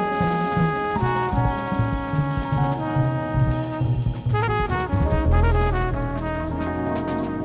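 Jazz background music: a brass section holding chords over a moving bass line.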